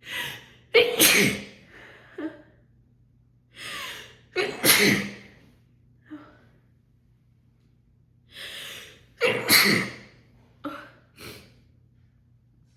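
A woman's harsh, loud, uncontrollable sneezing fit: three sneezes roughly four seconds apart, each preceded by a gasping in-breath, with short breaths between them.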